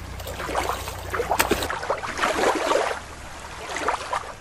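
Water splashing and sloshing.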